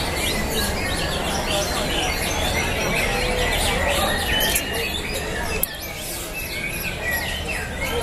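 Many caged songbirds singing at once in a contest, a dense chorus of overlapping chirps and trills, over a steady low rumble.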